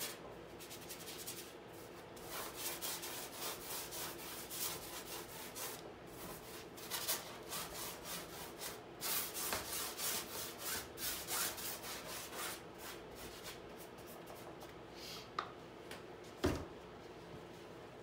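Paintbrush scrubbing paint onto a stretched canvas: a run of quick, rough strokes that thins out about two-thirds of the way through. Two short knocks near the end.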